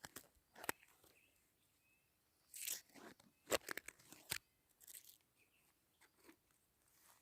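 Footsteps crunching on the forest floor, with a few sharper crunches and snaps at irregular intervals.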